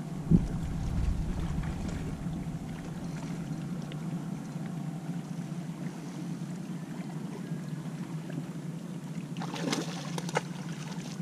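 A hooked Indo-Pacific tarpon splashing at the surface about nine and a half seconds in, over a steady low hum. A single thump comes just after the start.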